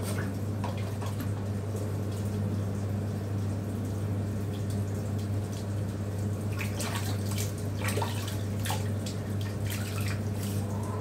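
Water splashing and dripping as a small dog is rubbed down by hand in a sink of water, with the splashes thickest about seven to nine seconds in. A steady low hum runs underneath.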